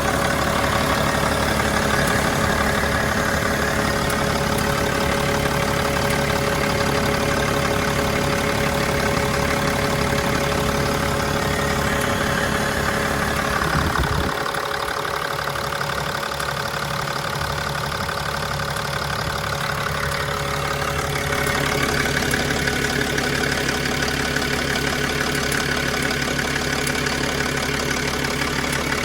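Mercedes E320 CDI diesel engine idling steadily with a strange ticking noise whose cause the owner does not know. The low rumble drops away about halfway through.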